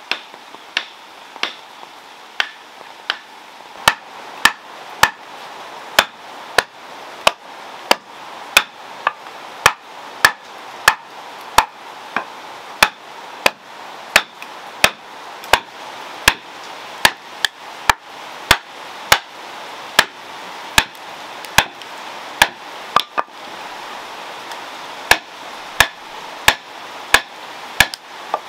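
Hand hammer striking repeatedly in a steady rhythm, each blow a sharp knock with a short ring. The blows come a little slower for the first few seconds, then settle at nearly two a second.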